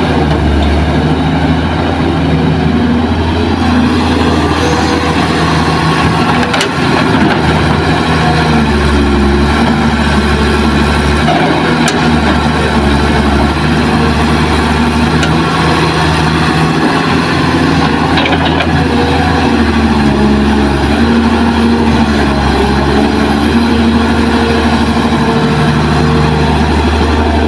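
Kobelco SK200 hydraulic excavator's diesel engine running steadily under working load while digging and swinging soil, its pitch shifting up and down with the hydraulic work. A few faint knocks are heard.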